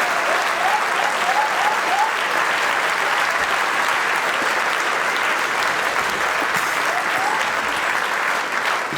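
A congregation applauding steadily, with a few short rising calls over the clapping in the first two seconds and again near the end.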